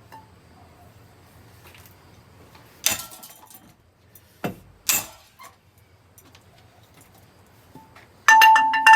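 Ceiling fan being smashed: three sharp hits a few seconds apart over a low steady hum, then near the end a loud rapid clatter of strikes with a clear ringing tone, like glass or metal parts chinking.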